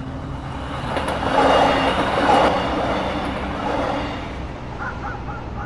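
A passing vehicle swelling and then fading over a steady low hum of city noise, loudest about two seconds in, with three short chirps near the end.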